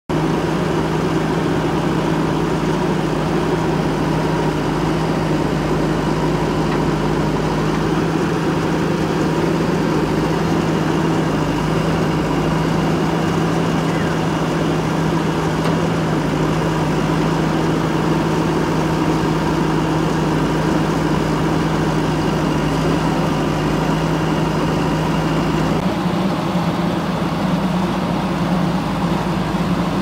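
JCB 3DX backhoe loader's diesel engine running steadily while the machine works. Its pitch steps up a little near the end.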